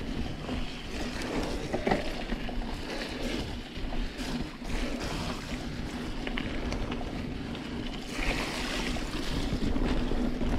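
Santa Cruz Hightower mountain bike rolling along a muddy trail: a steady rush of knobby tyres and wind on the action-camera microphone, with a few sharp knocks and rattles from the bike over bumps.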